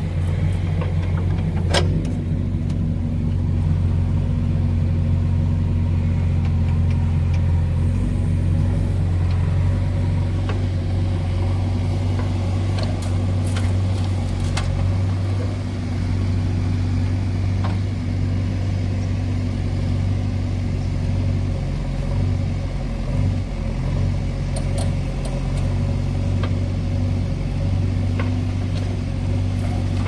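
Diesel engines of a JCB backhoe loader and a tractor running steadily, a deep drone that wavers slightly as the backhoe works, with a few sharp knocks along the way.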